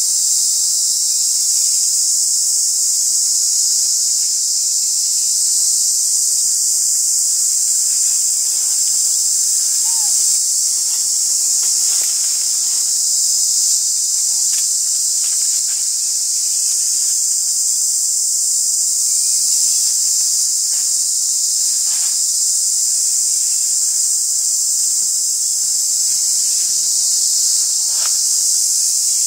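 A dense chorus of insects making a loud, steady, high-pitched drone, with a few faint clicks now and then.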